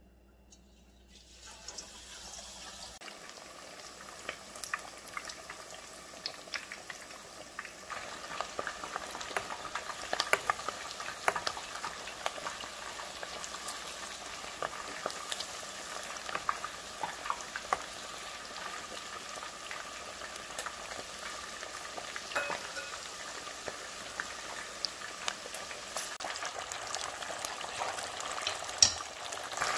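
Whole battered chicken deep-frying in a pot of hot oil: a steady sizzle with many sharp crackles and pops. It starts a second or two in and grows louder about eight seconds in, with one loud pop near the end.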